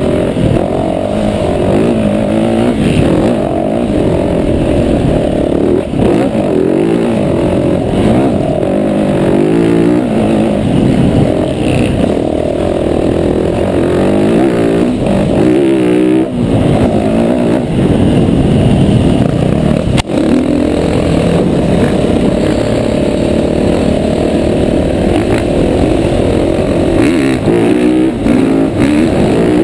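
Dirt bike engine running hard along a trail, revs rising and falling as the rider works the throttle, with a single sharp knock about twenty seconds in.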